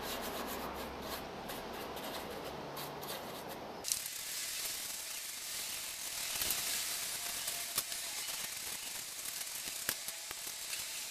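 Gloved hand rubbing and dabbing wet black tile grout onto carved styrofoam rock. About four seconds in, a steady high hiss abruptly takes over, with a few faint taps.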